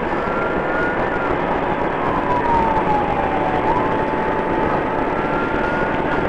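Police car siren wailing in a slow rise and fall, each sweep taking a few seconds, over the steady road and engine noise of the patrol car driving at highway speed.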